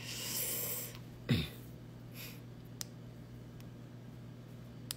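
A man's breathy laugh, then a short low vocal sound that falls in pitch, a faint breath and a few faint clicks, over a steady low hum.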